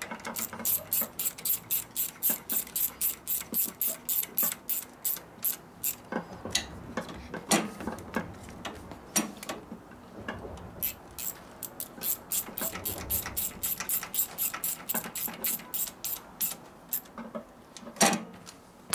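Hand socket ratchet wrench clicking as it is swung back and forth on a bolt, about four clicks a second, in two long runs with a break of scattered clicks in the middle. A single sharp knock near the end is the loudest sound.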